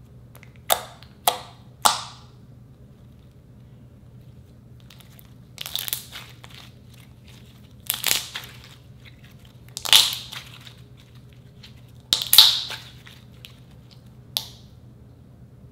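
Hands squeezing and pressing slime, trapped air popping and squelching out of it: three sharp pops in the first two seconds, then longer squelches about every two seconds.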